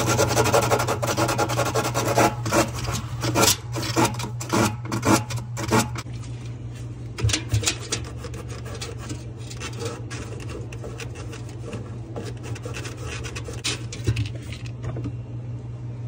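Hand rubbing and scrubbing at the aluminum-to-copper tubing joint of a refrigerator evaporator coil, cleaning the leak spot before an epoxy patch. Fast, dense rubbing strokes for the first several seconds, then slower, scattered ones.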